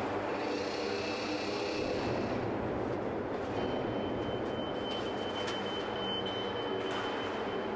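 Steady machinery noise of a car assembly plant floor: a constant hum with a thin high whine that comes in about halfway through, and a few faint clicks.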